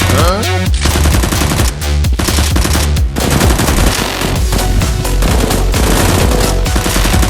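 Rapid bursts of automatic gunfire over electronic background music with a heavy bass beat.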